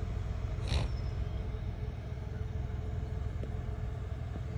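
A steady low rumble, like an engine running nearby, with a brief rustle about a second in.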